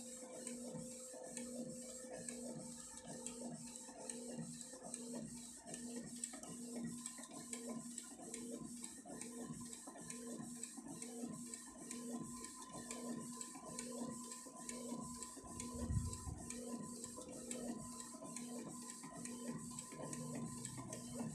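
Canon G-series ink-tank inkjet printer printing a sheet of glossy photo sticker paper: the print-head carriage shuttles back and forth in a steady, repeating rhythm of short passes as the sheet advances. There is one low thump about three-quarters of the way through.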